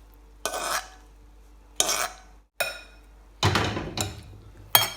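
Dishes and cutlery clinking and scraping in a few short separate clatters, as plates and bowls are handled.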